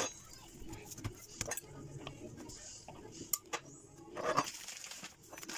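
Scattered sharp clicks and light taps of a table knife and dough pieces being handled on a marble countertop, with a short rustling patch about four seconds in.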